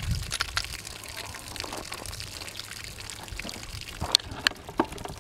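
Water pouring and trickling out of bullet-holed plastic water jugs and off the table onto the ground, with a few sharp ticks about four seconds in.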